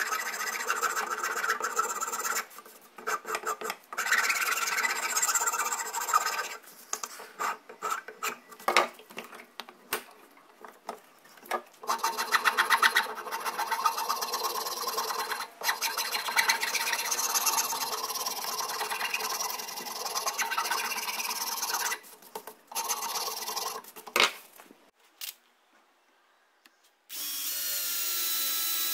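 A tool rasping or sanding a workpiece in repeated passes with short pauses between strokes. Near the end a small power tool runs briefly with a steady pitch.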